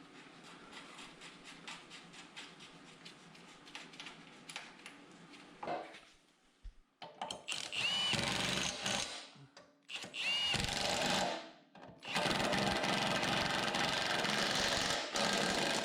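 A handheld power tool runs in three bursts, about one second, one second, then three seconds long; the first two start with a short rising whine as the motor spins up. It is being used to drive bolts. Before the bursts there is faint, irregular clicking.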